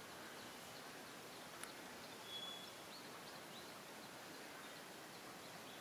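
Faint outdoor ambience: a steady even hiss with a few brief, high, faint bird chirps, one a short held whistle about two and a half seconds in.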